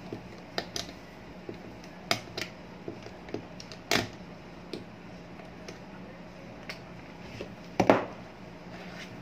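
Irregular metallic clicks and taps of needle-nose pliers and a screwdriver working at an electric fan's shaft fitting while the fan is taken apart, the sharpest about four seconds in. Near the end the plastic fan grille clatters loudly as it is handled, all over a faint steady hum.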